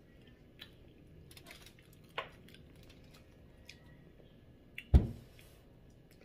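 Quiet sounds of eating by hand: small wet clicks of fingers and mouth on braised pork leg. A sharp click about two seconds in and a loud thump about five seconds in.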